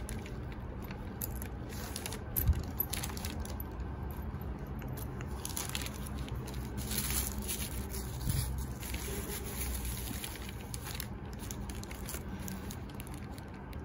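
Tissue paper and packing wrap crinkling and rustling as a new sling bag is unzipped and its stuffing handled. A single sharp knock comes about two and a half seconds in.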